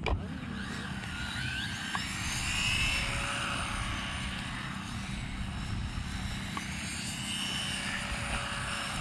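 Electric motors of small 1/14 and 1/18 scale RC buggies whining as they race around the track, the pitch rising and falling as they accelerate and slow.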